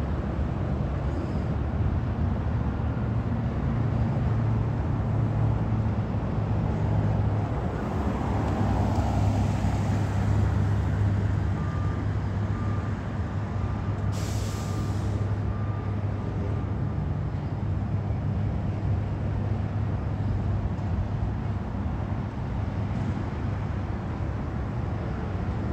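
Peterbilt 520 front-loader garbage truck's diesel engine running steadily, with a short, sharp air-brake hiss about halfway through. Faint repeated beeps sound for a few seconds around the hiss.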